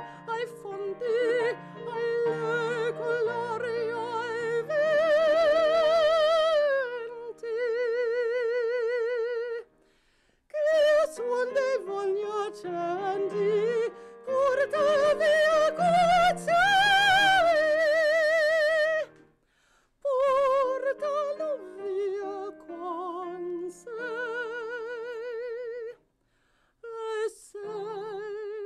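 A woman singing opera in a classical style, her voice carrying a wide, even vibrato, with keyboard piano accompaniment; the sung phrases break off briefly two or three times.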